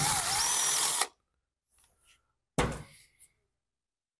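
Cordless driver spinning out a Torx screw from a chainsaw's plastic housing, a whining run of about a second that wavers in pitch. About two and a half seconds later there is a single thump.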